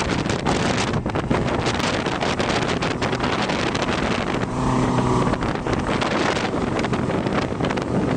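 Motorboat engine running steadily under way, with wind buffeting the microphone. The engine note comes through a little louder and clearer about halfway through.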